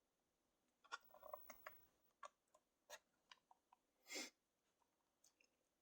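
Near silence with a scattered run of faint small clicks and handling noises, and a brief soft rustle about four seconds in.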